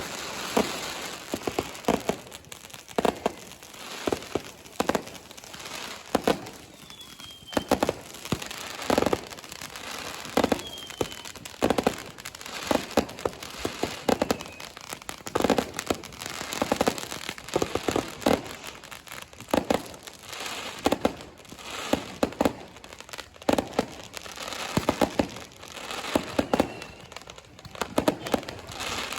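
Fireworks and firecrackers going off all around in quick, irregular bangs and crackling, with a couple of short whistles.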